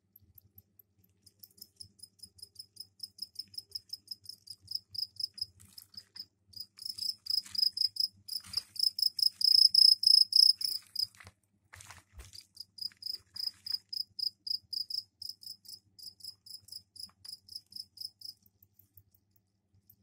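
Two-spotted crickets chirping their mating call: a fast, even run of high, ringing chirps, about five a second, swelling to their loudest in the middle. Near the middle the chirping breaks off for a moment with a sharp knock, then starts again and stops shortly before the end.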